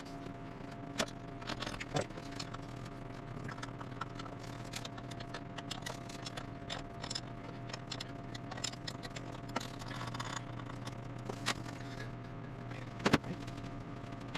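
Hand tools and metal parts clinking, clicking and scraping on a 1954 International R-110 truck engine during its top-end teardown, with a sharper knock about 13 seconds in. A steady low hum runs underneath.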